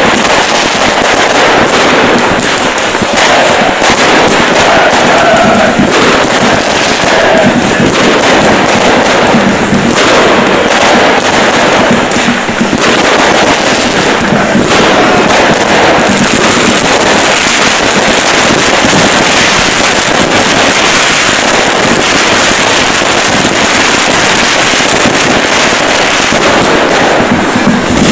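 Football fans' pyrotechnics going off: a continuous, dense crackling and popping, with burning hand flares and firecrackers together.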